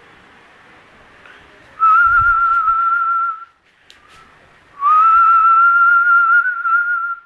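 A person whistling two long held notes at about the same pitch, each with a slight waver: the first about a second and a half long, starting about two seconds in, the second about two and a half seconds long, starting near the five-second mark.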